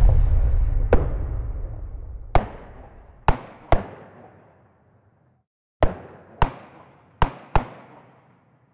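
Dramatic sound-design percussion: a heavy low boom at the start, then eight sharp booming hits, each ringing out for a second or more, spaced unevenly and often in pairs.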